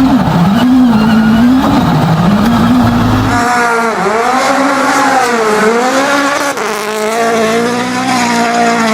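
Rally car engine revving hard, its pitch repeatedly rising and dropping through gear changes and lifts. About three and a half seconds in it changes to a higher engine note that swings up and down several times.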